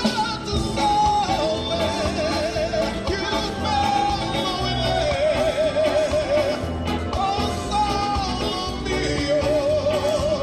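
Music: a singer holding long notes with wide, even vibrato over a steady pulsing bass beat.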